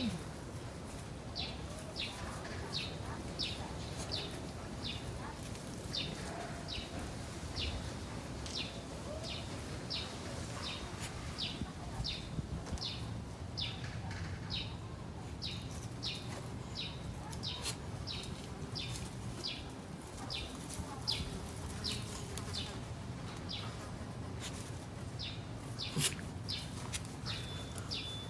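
Short high chirps repeated steadily, about three every two seconds, each sliding down in pitch, over a low steady background rumble.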